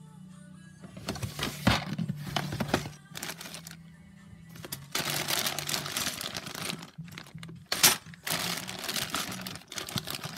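Plastic zip-lock bags full of Lego parts crinkling and rustling as they are handled, in several bursts. There is one sharp click about eight seconds in.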